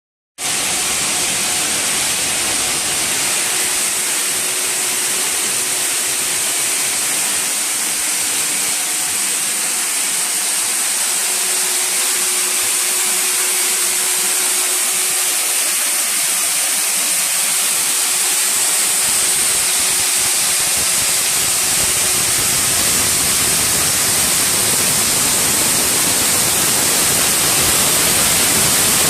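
Vial external washing machine running: a loud, steady hiss with a faint hum beneath it.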